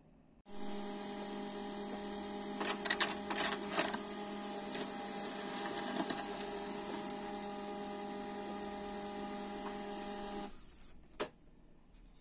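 Small HP laser printer printing a single page: its motor starts with a steady hum about half a second in, rattles for about a second a few seconds in, and stops suddenly near the end, followed by a single click.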